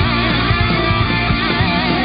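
Heavy rock music with an electric guitar lead over a fast beat.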